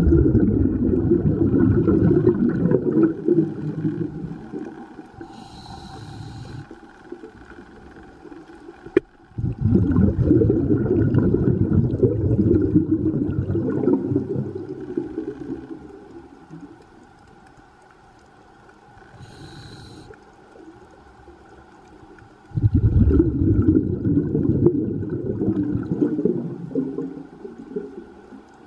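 Scuba diver breathing through a regulator underwater, heard through the camera housing. Three long stretches of exhaled bubbles, each lasting several seconds, alternate with two short hisses of inhalation.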